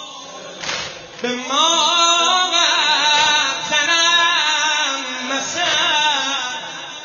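A man singing a Persian mourning lament (maddahi) in long, wavering melismatic phrases, starting about a second in. Just before it there is a single sharp smack.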